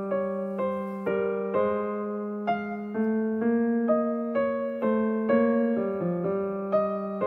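Background piano music: a slow melody of struck notes, about two a second, each fading after it is played.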